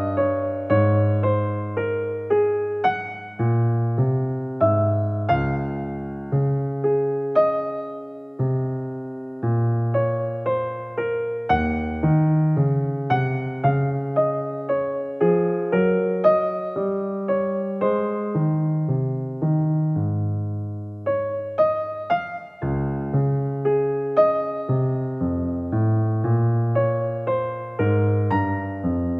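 Background music played on a piano-type keyboard: a tune of single struck notes that each die away.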